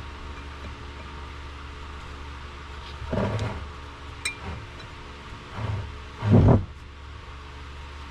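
Metal hub parts knocking on a workbench over a steady hum: dull clunks about three seconds in and again near the end, the last one loudest, with one short ringing metallic tap between them.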